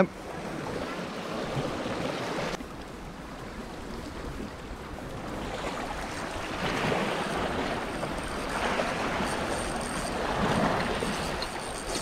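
Small sea waves washing and lapping against shoreline rocks, swelling and ebbing twice.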